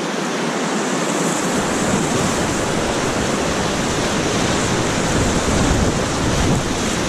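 Class III river rapid rushing and churning around an inflatable raft as it runs through the waves, with water splashing against the boat. A low rumble joins about a second and a half in and grows stronger near the end.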